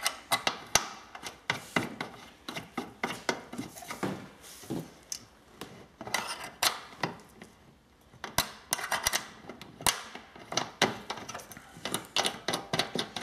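Irregular metal clinks and knocks as the steel motor plate of a dough mixer is handled on its stainless steel pot and its knob is worked by hand, with a short lull about seven seconds in.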